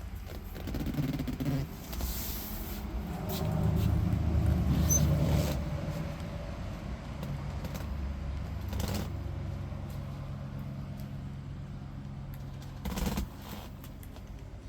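A motor vehicle engine idling steadily, with a short knock or rustle near the end.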